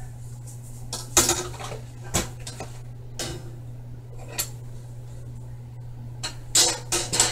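Metal cupcake tins clanking as they are handled and set down: a few separate knocks, then a quick cluster of clatter near the end, over a steady low hum.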